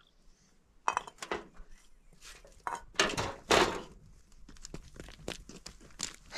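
Plastic water jugs knocking and clattering as they are handled and filled with water, with sharp clicks about a second in and a louder rush of noise a little after halfway.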